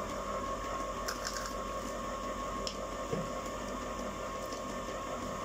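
Electric ice cream maker running with a steady motor hum. A few faint light clicks come about a second in and again near three seconds.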